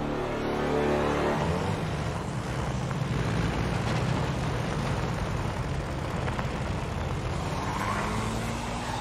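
An open jeep's engine running as it drives across a clearing. The sound starts sharply about one and a half seconds in, as a held music drone cuts off.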